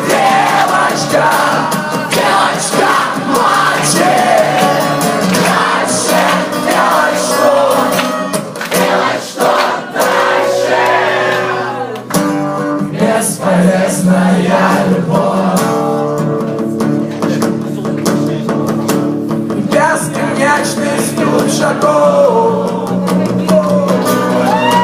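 A live rock band playing a song with a singer over guitars, dipping briefly about halfway through before carrying on.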